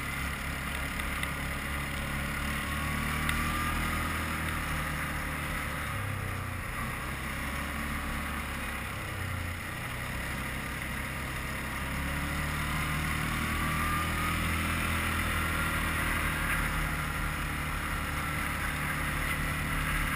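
Quad bike (ATV) engine running while it is ridden, its pitch stepping up and down with the throttle, rising about halfway through.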